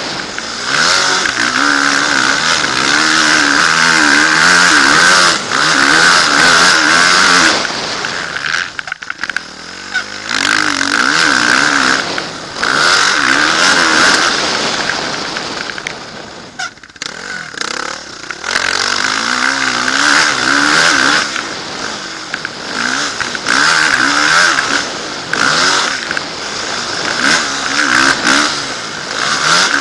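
Motocross dirt bike engine revving hard, its pitch climbing and falling with the throttle, heard from the rider's helmet camera. The engine note drops away briefly twice, about nine and seventeen seconds in, as the throttle is closed.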